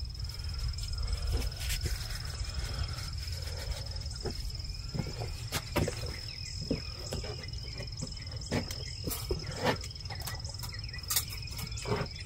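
A steady high insect trill holding one pitch throughout, with scattered sharp clicks and knocks, the loudest sounds, as a wire cage trap is carried and handled.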